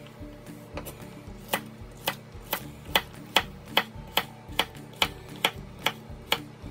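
Chef's knife chopping carrots on a wooden butcher-block cutting board: a steady run of sharp knocks on the wood, soft at first, then about two and a half strikes a second from about a second and a half in.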